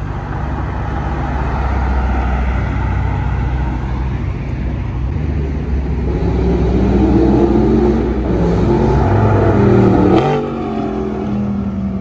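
A sports car's engine revving hard as it accelerates past, its note climbing and growing louder, then dropping suddenly just after the loudest point and carrying on at a steadier, lower note as it pulls away. Before it, a steady low rumble of engines.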